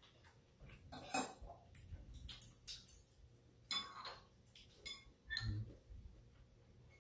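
Metal chopsticks and a spoon clicking and clinking against steel bowls and a steel serving tray as food is picked up, in scattered light taps, with a louder ringing clink about four seconds in and a duller knock a little later.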